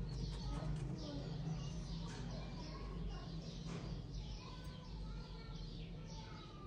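Small birds chirping: short, high, falling chirps repeating every half-second or so, over a low steady hum.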